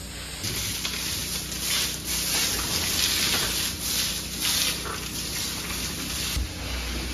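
Water spray hissing steadily, starting about half a second in, rising and falling in strength.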